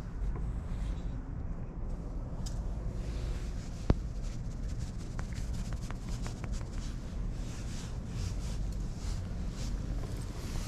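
Scratchy rustling of a hand stroking a cat's fur close to the microphone, the strokes coming thick and fast in the second half, over a steady low rumble. One sharp click about four seconds in.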